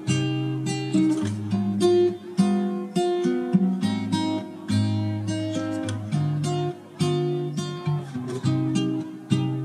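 Background music: an acoustic guitar playing plucked and strummed chords, a new chord or note about every half second to second.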